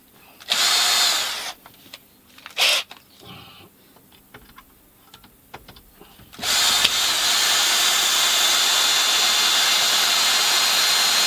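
Power drill boring a hole. It runs in a short burst about half a second in and a brief one near three seconds, gives a few faint clicks, then runs steadily with a high motor whine from about six seconds on.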